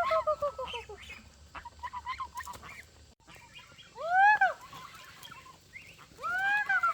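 Farm poultry calling. Three long, loud calls each rise and then fall in pitch: one at the start, one about four seconds in and one near the end. Short high peeps come between them.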